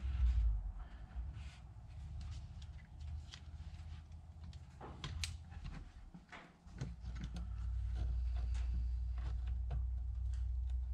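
Scattered light plastic clicks and rattles as a Dodge Ram TIPM circuit board is handled and fitted back into its black plastic relay housing, over a low steady hum that cuts out briefly around the middle.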